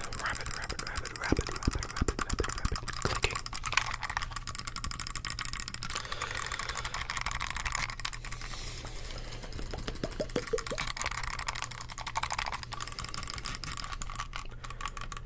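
Rapid mechanical clicking of a computer mouse's buttons, many fast clicks in quick succession.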